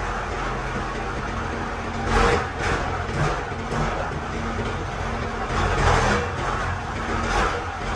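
Factory machinery running: a motor and gearbox drive a large steel drum with a steady low hum. Several short, louder rushing bursts break through it as steam billows out of the drum.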